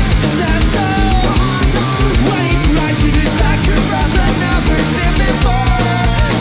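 Heavy rock band playing live at full volume: distorted guitars over fast, pounding drums, with a lead melody that wavers and bends in pitch.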